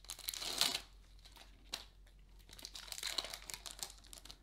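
Foil wrapper of a trading card pack being torn open and crinkled by hand: a loud crackle through the first second, then quieter crinkling and rustling as the wrapper is peeled back from the cards, with another burst of crinkling about three seconds in.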